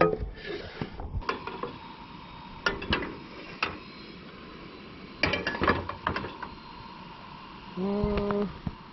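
Clusters of metal clicks and clinks, from camp cooking gear being handled at a portable grill, over a faint steady hiss. A short low hum sounds near the end.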